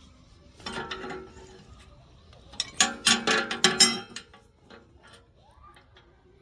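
Metal pieces clanking and ringing in two bursts of strikes, the second, about three seconds in, louder and made of several quick hits.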